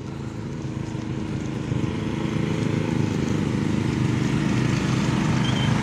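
A vehicle engine running steadily and growing gradually louder.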